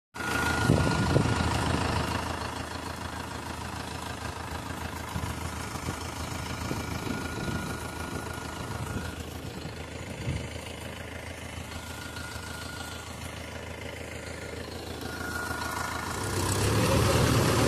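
Diesel tractor engine idling steadily, getting louder near the end.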